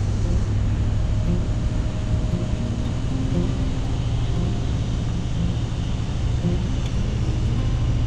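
Steady low rumble of a vehicle driving along a paved road, with road and engine noise at an even level.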